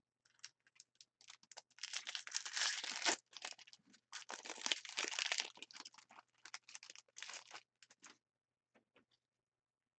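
Foil trading-card pack wrapper crinkling and tearing as it is handled and opened, in two longer spells of crackling followed by scattered lighter crinkles.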